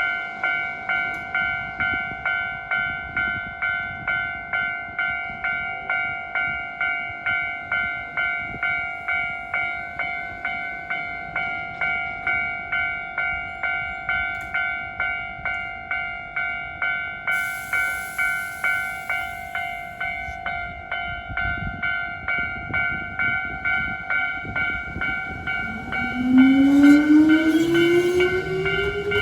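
Japanese level-crossing warning bell ringing, a steady electronic ding repeating a little under twice a second. Near the end a Hankyu 5100-series electric train comes through, its traction motors whining and rising in pitch as it accelerates.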